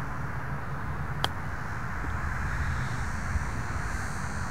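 A golf club strikes the ball once, a sharp click about a second in, on a short, low-flighted shot of about 54 yards. A steady low rumble sits underneath.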